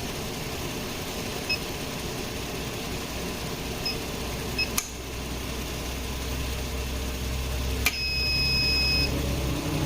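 Electronic keypad beeps from a refrigerant charging scale as its settings are keyed in: three short beeps spread through the first five seconds, then a click and a single longer beep of about a second near the end. Underneath is a steady low hum of the car engine idling.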